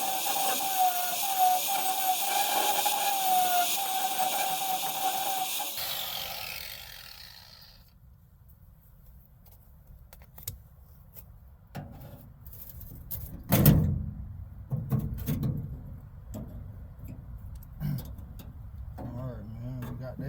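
Angle grinder cutting through the rivets of a car door's interior handle: a hiss with a whine that wavers and dips under load, switched off about six seconds in and spinning down. After that come clicks, knocks and clatter from handling the door parts, the loudest knock a little past halfway.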